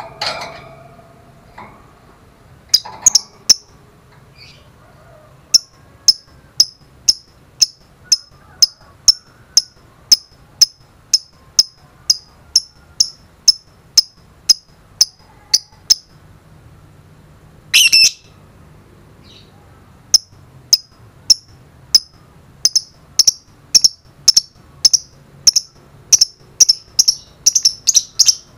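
Fischer's lovebird giving a long series of short, sharp chirps, about two a second and quickening near the end, with one longer harsh call about two-thirds of the way through. This is the rapid repeated chirping that lovebird keepers call "ngetik".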